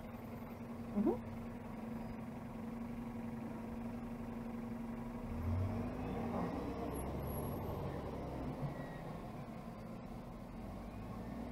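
City street traffic: a steady low rumble with a vehicle engine's steady hum that stops about six seconds in. A short rising squeak sounds about a second in.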